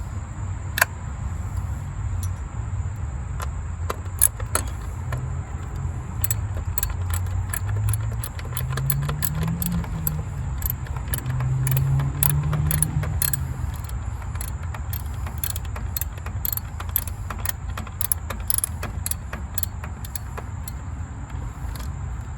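Hand tools working on engine-bay fasteners: scattered sharp metallic clicks and clinks from a socket and ratchet on bolts, over a steady low rumble. A low drone swells and fades about halfway through.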